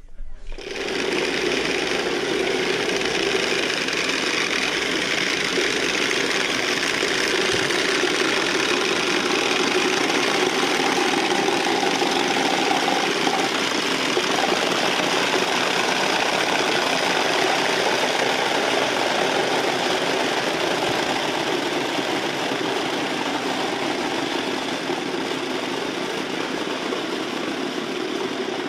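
Many wooden Easter rattles (Klappern) being worked at once, a dense, continuous clattering that runs without a break.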